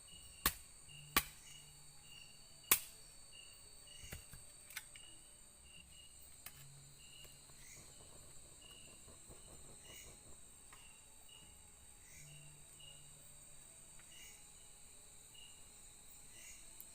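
Night insects in the forest: a steady high-pitched whine with a cricket-like chirp repeating about twice a second. A few sharp knocks or clicks sound in the first five seconds, the loudest one nearly three seconds in.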